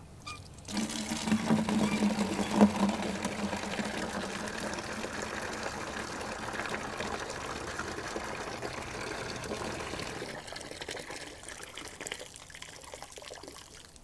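Water from an outdoor faucet pouring into a plastic 5-gallon bucket, starting suddenly about a second in. It is loudest at first, then runs steadily as the bucket fills, and tails off after about ten seconds as the faucet is shut off.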